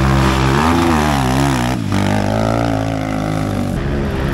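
Engine revving up and down, then cutting suddenly about two seconds in to a steadier engine note.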